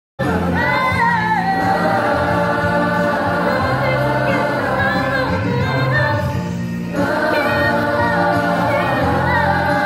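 A group of voices singing together in harmony, choir-style, starting abruptly a moment in as the sound cuts in, with a brief dip near seven seconds.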